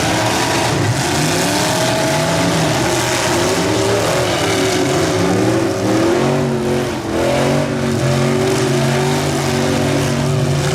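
Several demolition derby vehicles' engines running and revving at once, their pitches rising and falling over one another.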